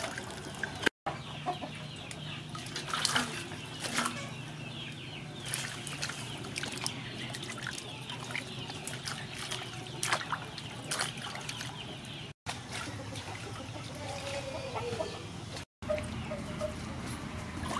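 Hands swishing and lifting vegetables in a metal basin of water, with splashes and water trickling off them; chickens cluck in the background. The sound cuts out briefly three times.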